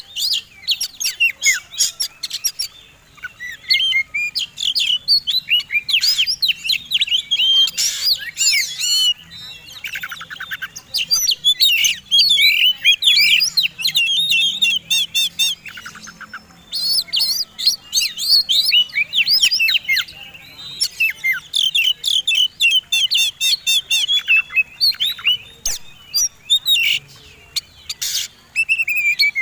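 Oriental magpie-robin singing the profuse fighting song of a competition bird: a fast, varied run of chirps, trills and sweeping whistles mixed with sharp clicking notes, broken by a few short pauses.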